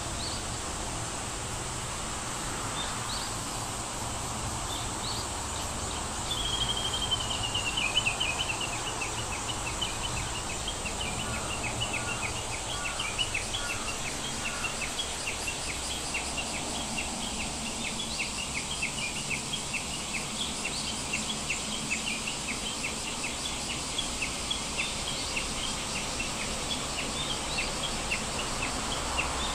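Birds chirping over a steady hiss: a falling high trill about six seconds in, then a long run of short high chirps, about two a second.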